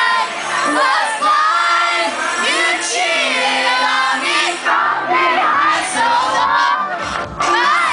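Live dance-pop performance: a female lead singer singing over a synth backing track, with the crowd cheering and shouting along.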